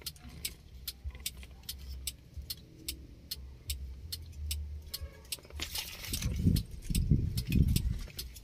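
Hazard flasher of a mini dump truck ticking evenly, about three clicks a second, with the hazard lights switched on and working. Low rumbling thumps from handling join in between about five and a half and eight seconds.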